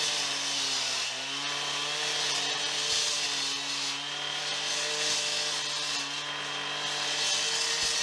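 Petrol two-stroke cut-off saw running at high speed with its blade in a cut through a concrete driveway slab. The engine note holds steady under load, sagging briefly about a second in.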